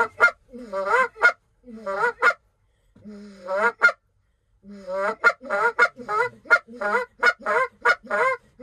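Hand-blown goose call: a series of close, loud honks, each breaking from a low note to a higher one, then a pause and a quicker run of short clucks from about halfway through.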